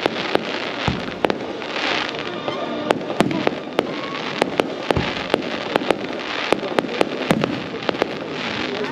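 Fireworks display: aerial shells bursting in an irregular run of sharp bangs, roughly two a second, over a constant background rumble and crackle.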